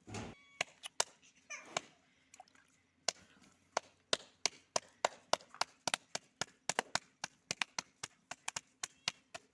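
A thump, then a short rising cry, then a quick, even run of sharp strikes, about three a second and speeding up.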